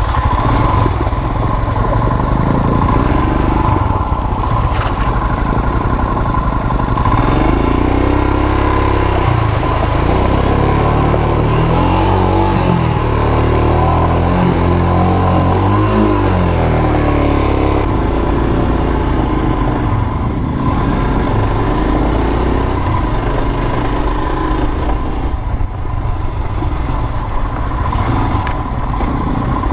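Royal Enfield Himalayan's 411 cc single-cylinder engine running under load, its pitch rising and falling with the throttle as the motorcycle rides through a shallow, rocky creek.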